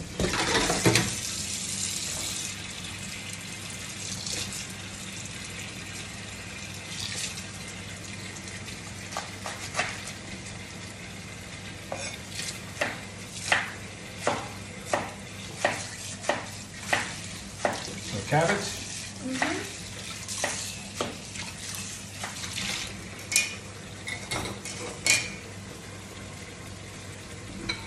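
Washing up at a kitchen sink: running, splashing tap water at the start, then a run of clinks and knocks from pots, pans and utensils being handled, roughly one or two a second for over ten seconds, over a steady low hum.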